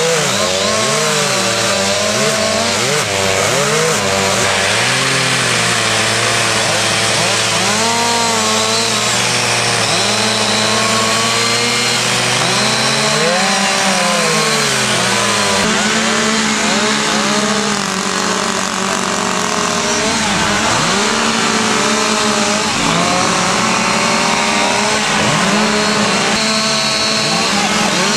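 Several two-stroke petrol chainsaws running at once, their engines revving up and falling back over and over as they cut into logs.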